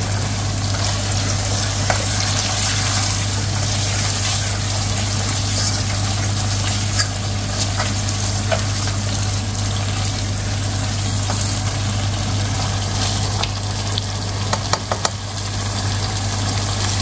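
Mutton curry sizzling in a pot over the flame, with a few clicks and scrapes of a spatula against the pot. A steady low hum runs underneath.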